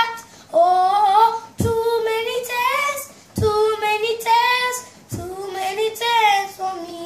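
A young boy singing a calypso unaccompanied, in four phrases with long held notes and short breaks between them.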